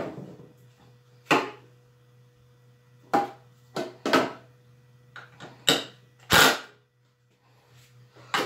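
Hard plastic clicks and clunks from handling cordless impact drivers and their battery packs: about six sharp knocks at uneven intervals, the loudest about six and a half seconds in, over a faint steady hum.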